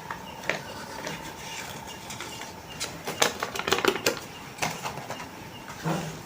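Hands handling paper and plastic packaging: scattered crinkles and sharp clicks, busiest around the middle.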